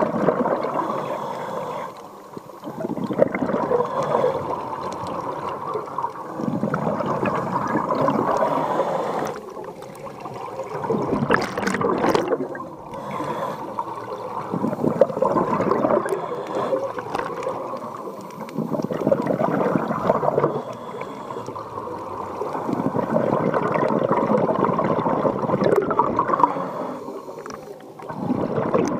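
Exhaled bubbles from a scuba diver's regulator, heard underwater, gurgling in bursts a few seconds long with short lulls between breaths.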